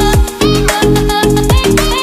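Background music with a steady, quick beat.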